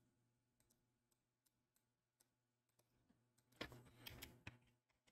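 Faint computer keyboard and mouse clicks while working at a computer, mostly spaced out, with a short run of keystrokes about three and a half seconds in.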